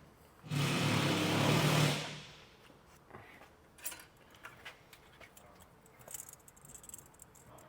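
A loud mechanical whirring burst lasting about a second and a half, followed by scattered light clicks and clinks of metal tools being handled.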